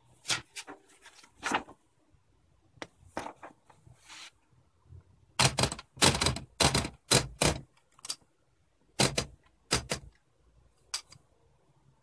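UNIS tbm de luxe portable typewriter being worked by hand while a sheet of paper is loaded into it: irregular sharp mechanical clacks and clicks in short clusters, densest and loudest about halfway through.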